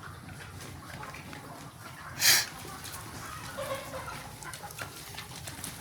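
Desi chickens clucking and scratching in a poultry shed, with scattered short calls over a steady low rumble. A single short, loud, harsh burst about two seconds in, such as a squawk or a flap of wings.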